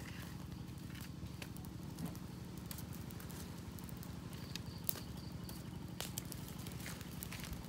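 Wood campfire crackling, with scattered sharp pops, the loudest about five seconds in, over a steady low hum.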